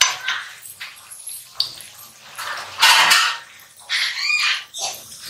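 Koftas deep-frying in hot oil with a sizzle, while a metal slotted spatula scrapes and knocks against the kadhai as they are turned, loudest about three seconds in. A short squeaky sound comes about four seconds in.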